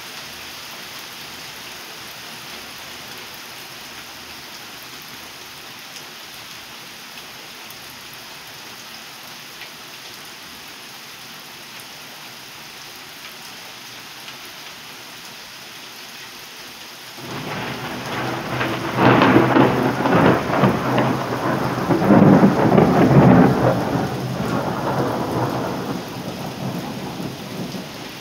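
Steady rain falling. About two-thirds of the way in, a clap of thunder breaks suddenly into a long, loud rumble that swells twice and then slowly fades under the rain.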